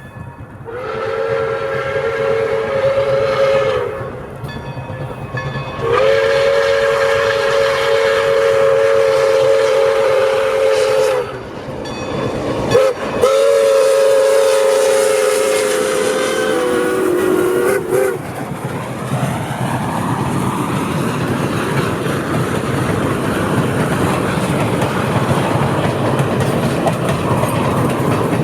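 Pere Marquette 1225, a 2-8-4 Berkshire steam locomotive, blowing its steam whistle in three long blasts; the last drops in pitch just before it stops as the engine goes by. Then comes the steady rolling noise of the train passing.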